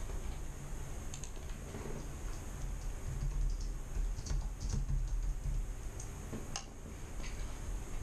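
Typing on a white Apple computer keyboard: irregular key clicks, with one sharper click about six and a half seconds in.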